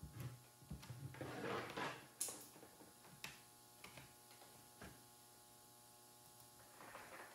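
Near silence: quiet room tone with a few faint, scattered clicks and soft rustles.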